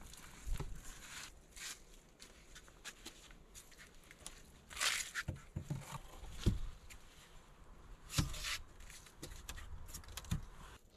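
Logs being set down and shifted on ground covered in dry leaf litter: several dull wooden thumps among scraping and rustling of bark and dry leaves.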